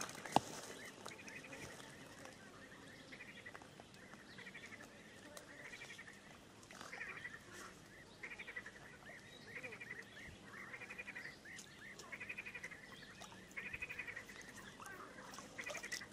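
Faint short trilled animal calls, repeated every second or so, with a single sharp click just after the start.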